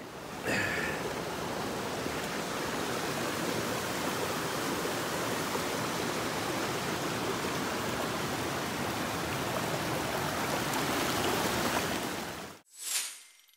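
Sabino Creek running high, with a steady rush of flowing water. It cuts off abruptly near the end, followed by one short, bright ding.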